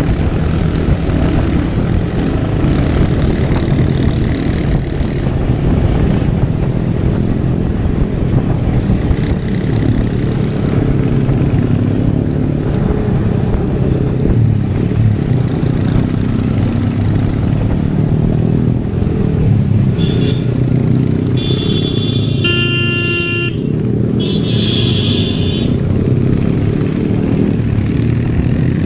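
Royal Enfield Hunter 350's single-cylinder engine and exhaust running steadily while riding. About three-quarters of the way in, a vehicle horn sounds briefly a few times.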